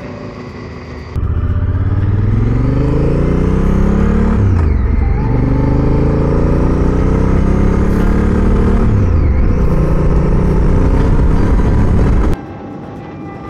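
Honda Africa Twin's parallel-twin engine under way on the road, accelerating with its pitch climbing, dropping at two upshifts about 4.5 and 9 seconds in, then climbing again. The loud engine sound starts suddenly about a second in and cuts off abruptly a second before the end, leaving quieter road and wind noise.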